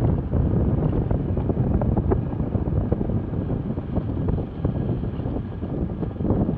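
Wind buffeting an action camera's microphone on a bicycle moving at about 14 mph: a steady rumbling rush with small scattered ticks.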